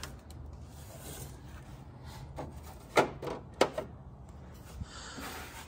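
Hard plastic parts of a vintage G.I. Joe playset clicking and knocking as a small hatch door is handled, with two sharp clicks about half a second apart a little past the middle and a few lighter taps and rubbing around them.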